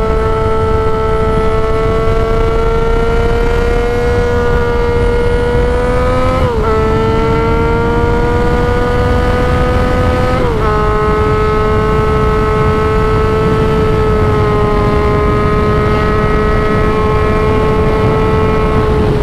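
2016 Yamaha XSR900's 847 cc inline three-cylinder engine pulling through a Mavericks aftermarket muffler while riding. Its note climbs slowly and drops sharply twice, about a third and halfway through, as it shifts up a gear, then holds a steady cruise. There is heavy wind noise throughout.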